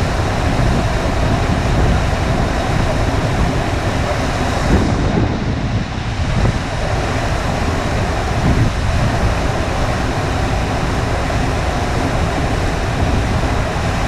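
FlowRider surf simulator's pumped sheet of water rushing steadily up the ramp, with wind rumbling on the microphone.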